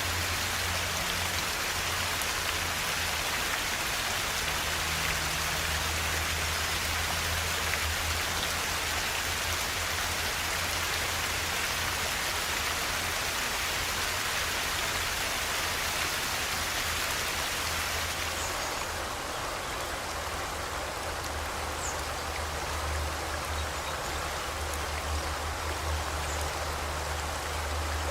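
Flowing river water: a steady rushing hiss over a low rumble. About two-thirds of the way through, the high hiss softens and stays lower, and a faint high bird chirp or two come through.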